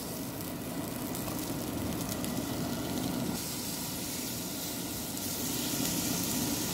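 Hanwoo beef ribeye sizzling steadily on a hot grill plate over charcoal, with a few light clicks of metal tongs in the first few seconds as the meat is spread out.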